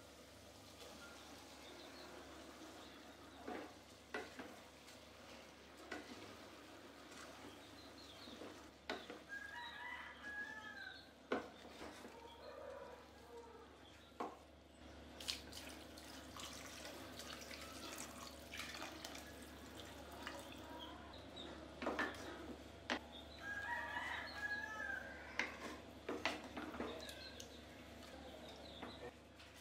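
A spoon scrapes and knocks against an aluminium pressure cooker as soaked basmati rice is tipped in and stirred through the vegetables, with water poured in. A rooster crows twice in the background, once about a third of the way in and again about three-quarters through.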